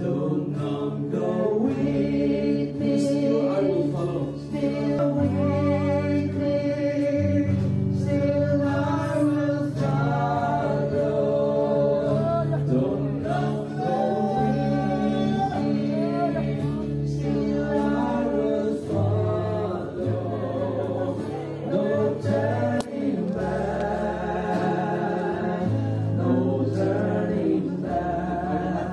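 A group of voices singing a Christian hymn together, over sustained low instrumental notes that change in steps.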